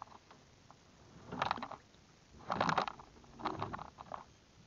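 Three short bursts of rapid clicking and rattling as a fishing rod and spinning reel are handled.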